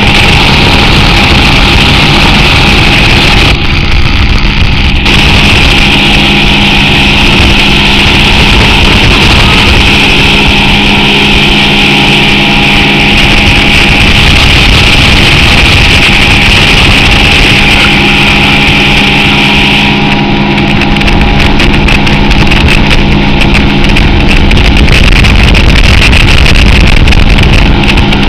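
Motorboat engine running steadily at speed, heard from aboard, under a constant rushing hiss from the churning wake and the air going by.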